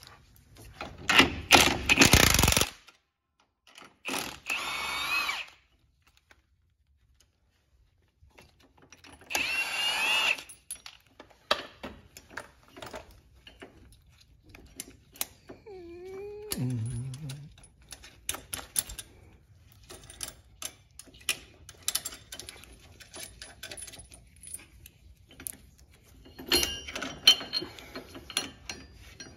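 Three short bursts of a power tool in the first ten seconds, its whine wavering in pitch. These are followed by many light clicks and clinks of metal hardware and hand tools as the sway bar brackets and bolts are fitted to the rear axle.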